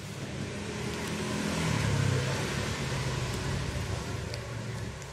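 A motor vehicle's engine passing by, growing louder to a peak about two seconds in and then easing off.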